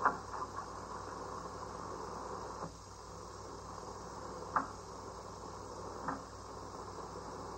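Steady hiss and hum of an old 1930s film soundtrack. Over it come a few short knocks, at the start, about halfway through and again near the end, as a long wooden stick is fitted across a car's front seat.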